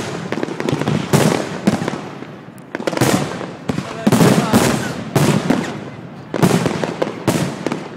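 Fireworks bursting in a rapid series of loud bangs, about ten in eight seconds, each trailing off with crackle and echo.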